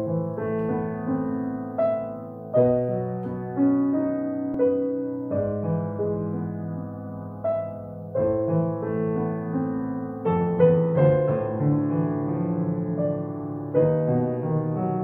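Solo grand piano playing a slow, tender melody over sustained chords, with new notes struck about once a second and left ringing.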